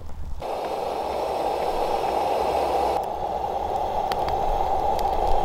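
Wood fire burning in a metal fire pit: a steady hiss with a few sharp crackles.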